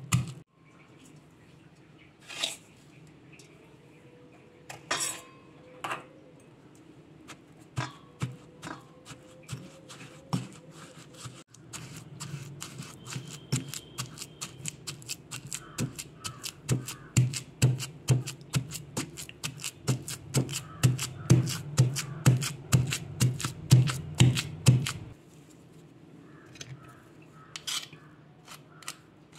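Pestle pounding grated coconut and jaggery in a stone mortar to grind them into a paste. There are scattered dull thuds at first, then a steady run of strikes about two or three a second from about halfway through, stopping a few seconds before the end.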